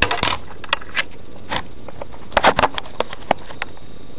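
Irregular clicks and knocks of a plastic smoke alarm and its battery being handled, a quick cluster about two and a half seconds in, over a steady background hiss.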